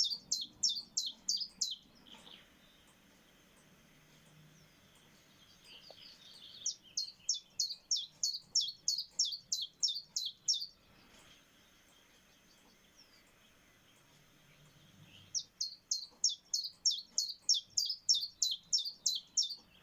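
Common chiffchaff singing its chiff-chaff song: three runs of sharp, high, evenly spaced notes at about four a second. Each run lasts a few seconds, with pauses of several seconds between.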